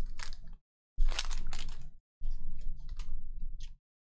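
Stack of Panini Prizm football cards being flipped through by hand, the slick cards clicking and sliding against each other over a low hum. It comes in three short stretches, each cutting off abruptly.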